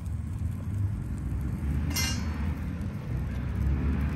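A metal spatula clinks once as it is set down, about two seconds in, over a steady low rumble.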